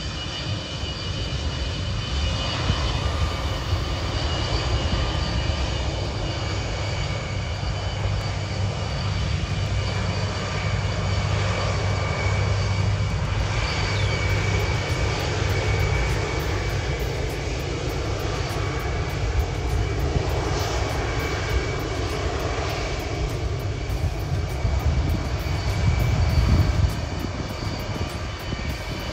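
Antonov An-124-100's four Progress D-18T turbofan engines running as the freighter rolls along the runway: a steady whine of several high tones over a low rumble, loudest about 26 seconds in.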